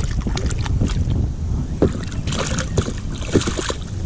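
Wind rumbling on the microphone, with a sharp click a little under two seconds in, then a cluster of clicks and splashy hiss lasting about a second and a half.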